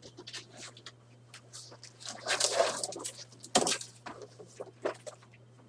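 Handling noise: a run of short rustles and clicks, a longer, louder scraping rustle about two seconds in, and a sharp knock about three and a half seconds in.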